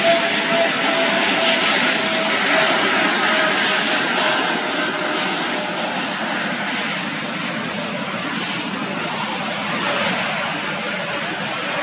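Passenger airliner's engines heard from near the airport: a loud, steady rushing noise with a faint whining tone, slowly fading.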